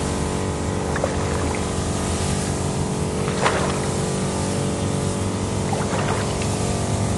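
Small petrol engine of a crop power sprayer running steadily at constant speed, driving the pump that feeds the spray lance.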